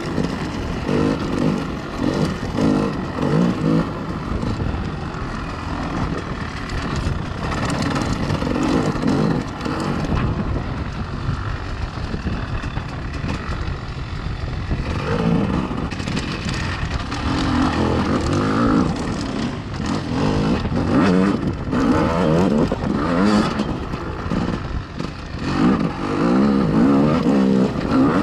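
Off-road vehicle engine running under way, revving up and down repeatedly as the throttle opens and closes.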